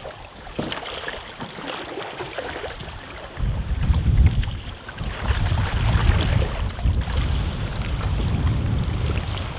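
Choppy loch water splashing and slapping against a canoe's hull as it is paddled along. From about three seconds in, gusty wind buffets the microphone with a low rumble.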